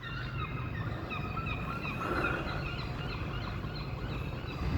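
Birds calling over and over, many short rising and falling calls overlapping, above a steady low rumble of town traffic.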